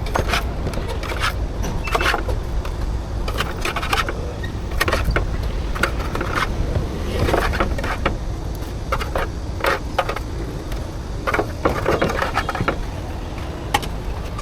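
Steady low rumble of road traffic, with frequent short clicks and scrapes.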